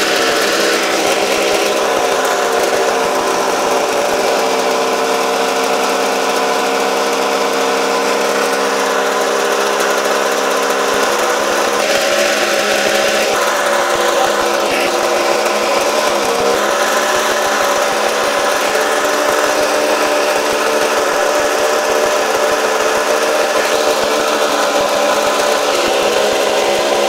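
Snowmobile engine running steadily on a stand with no coolant cooler fitted, its coolant loop simply looped back on itself and filled with waterless coolant while it is run up to high temperature. The pitch shifts a little about eleven seconds in.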